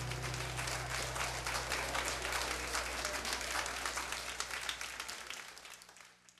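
Audience applauding at the end of a live-recorded song, the last guitar chord dying away underneath; the applause fades out near the end.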